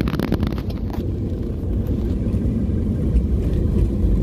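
Steady low rumble of road traffic, a large vehicle's engine running close by. A few short clicks come in the first second.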